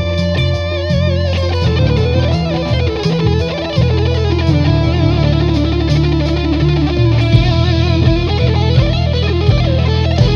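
Jackson Dinky JS32 electric guitar playing a lead line in E Phrygian dominant, with wide vibrato and bent notes, over a backing track with bass.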